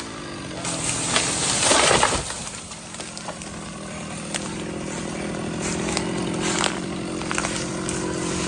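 Wood cracking and breaking in a loud burst with sharp snaps during the first two seconds, then a chainsaw engine idling steadily.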